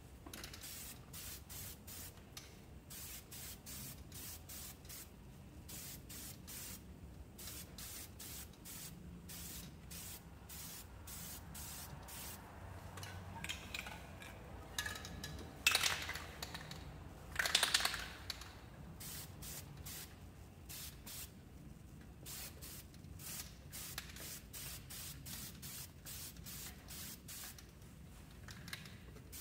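Aerosol spray-paint can hissing in quick short bursts, about two a second, with two louder, longer bursts a little past halfway.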